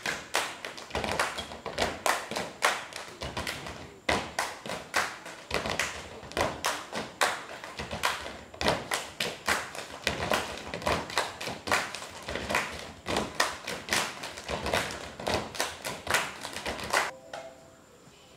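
A group of performers doing body percussion: rapid, rhythmic hand claps, body slaps and foot stamps that stop abruptly about a second before the end.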